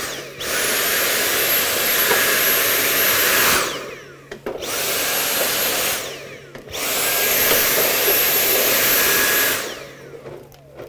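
Cordless battery vacuum cleaner switched on three times. Each time its motor spins up with a rising whine, runs a few seconds, then winds down and cuts out: the battery is flat.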